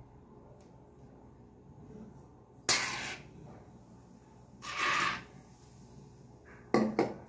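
Aerosol hair-mousse can dispensing foam: two short hisses a couple of seconds apart, the first starting abruptly, followed by a couple of sharp clicks near the end.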